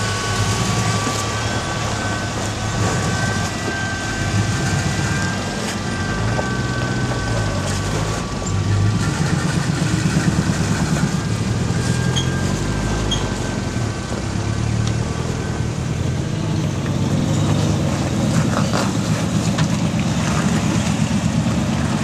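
Off-road vehicle engine running at low revs while crawling over boulders: a steady, pulsing low rumble that swells a little now and then, with a thin high whine over it at times.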